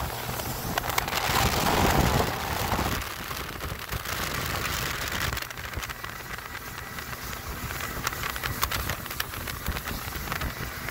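Wind buffeting the microphone and spray hissing and crackling off the hull of a fishing boat running at speed, over the drone of its Mercury Verado 250 outboard; loudest about two seconds in.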